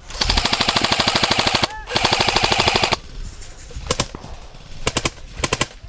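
Airsoft electric guns firing on full auto: two long, loud bursts of rapid shots close by, split by a brief pause, then quieter scattered single shots and short bursts further off.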